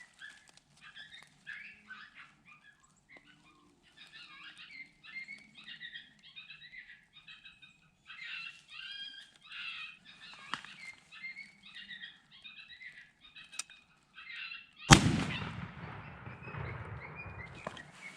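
A run of short, high, yipping animal calls, then a single shotgun blast about fifteen seconds in, the loudest sound here, with a long echoing decay.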